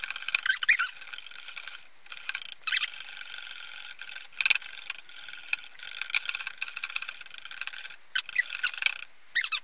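Metal wire balloon whisk beating instant dessert mix and milk in a glass bowl: rapid clicking and scraping of the wires against the glass, with short breaks about two and eight seconds in. The mix is being whisked until light and creamy.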